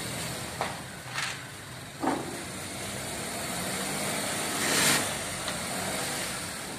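Small Suzuki hatchback's engine idling as the car creeps forward at walking pace, with a few short knocks early on and a brief louder swell of noise about five seconds in.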